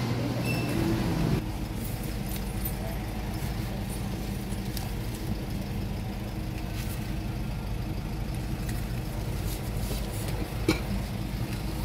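Steady low engine hum of a bus, heard from inside its cabin, after a short stretch of busier background noise that gives way about a second and a half in. One sharp click near the end.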